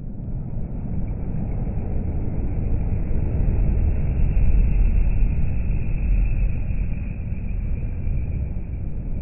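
A MAN articulated lorry with a curtainsider trailer passing on the motorway: a low rumble of tyres and engine that builds to its loudest about halfway through, then eases as it goes by.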